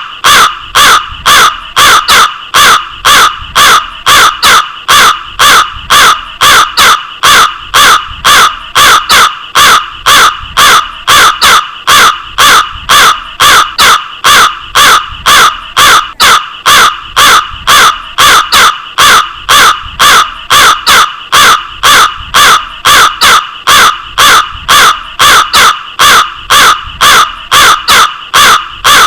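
Crow cawing over and over: short, harsh caws repeated at an even pace, about two and a half a second.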